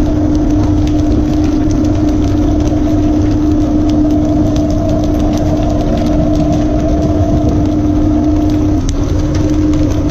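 Fishing boat's engine running, a steady drone with a constant hum over a low rumble; the hum starts to break up near the end.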